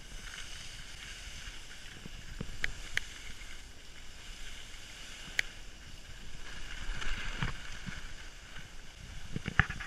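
Skis sliding and scraping over packed snow while skiing downhill, a steady swishing hiss with wind rushing over the camera microphone, and a few sharp clicks along the way.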